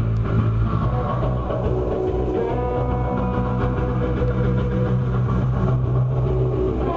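Rock band playing live on amplified instruments: electric guitar over a steady electric bass, with long held notes, heard from on the stage.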